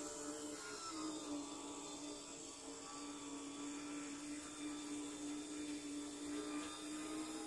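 Z-scale model locomotive's tiny electric motor whining steadily as the train runs along the track, the whine slowly rising in pitch.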